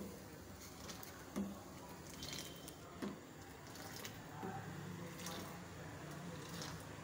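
Faint liquid sounds of milk tea simmering and being ladled in a steel saucepan on a gas burner, with a few light clicks.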